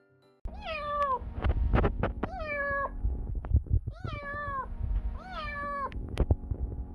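A very small kitten meowing four times, thin high-pitched calls that each rise and then fall in pitch.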